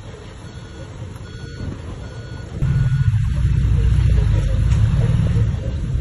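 Heavy construction machinery running: a low diesel engine rumble that becomes much louder about two and a half seconds in and drops back just before the end. A faint reversing alarm beeps about once a second.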